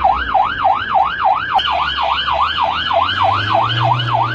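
Ambulance siren in fast yelp mode, its pitch sweeping up and down about three to four times a second, over a low vehicle rumble.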